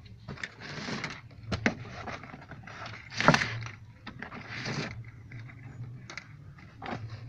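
Rustling and scraping of a loose car wiring harness being pulled by hand past the plastic footwell trim, with a few short clicks. The loudest scrape comes about three seconds in.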